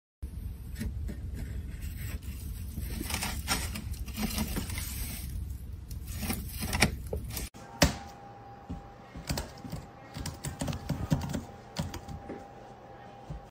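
Rustling and scattered taps, then after a sudden cut a faint steady whine under irregular clicking, like the keys of a computer keyboard being tapped.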